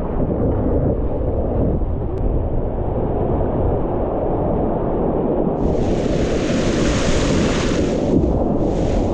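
Whitewater river rapids rushing around a kayak: a heavy, steady low rumble of moving water. A brighter splashing hiss joins in about halfway through and again near the end as the boat runs through the waves.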